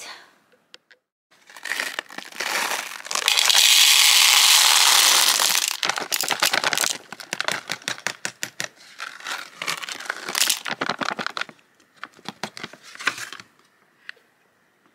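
Hard wax beads being poured out of a crinkly plastic bag into a metal wax-warmer pot: a dense rush of pellets and rustling, then scattered clicks and crinkles for several seconds.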